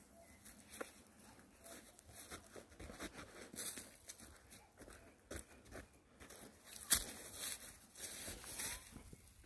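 Irregular rustling and crunching of grass and weeds underfoot as a person walks through overgrown vegetation, with one sharper snap about two-thirds of the way through.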